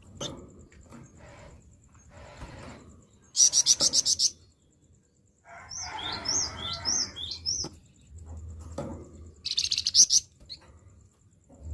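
A songbird giving harsh, rasping calls: two loud bursts of rapid rattling notes, with a run of short, high whistled notes between them.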